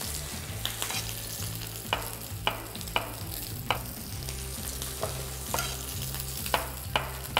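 Chef's knife slicing button mushrooms on a wooden cutting board: about eight sharp, irregular knocks of the blade meeting the board. Under them runs the steady sizzle of a steak searing in a hot oiled pan.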